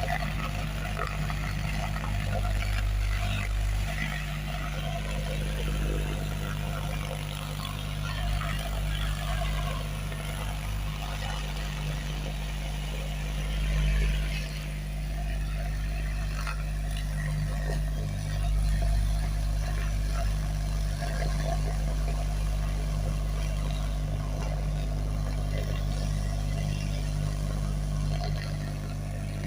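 JBL PartyBox Encore Essential 2 portable party speaker playing a bass test track: deep, steady bass notes that dominate the sound, with fainter music above them.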